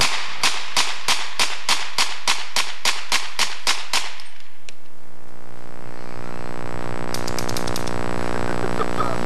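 A rifle fired in rapid, regular succession: about fifteen shots over four seconds, roughly three or four a second, then it stops. A steady electrical hum runs underneath.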